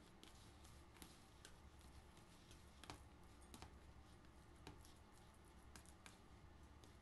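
Faint, irregular clicks of a metal fork against a mixing bowl as bananas are mashed, over a low steady hum.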